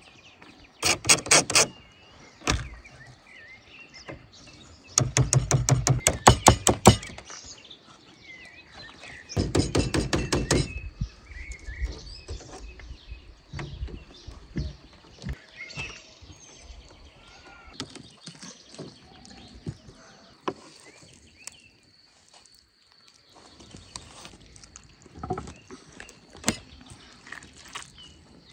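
Birds chirping in the background. Three loud bursts of rapid rattling clicks come in the first eleven seconds, and a few single sharp knocks follow.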